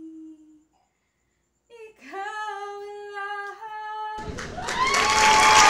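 A woman's singing voice holding long notes, with a gap of near-silence early on. About four seconds in, loud applause starts and swells.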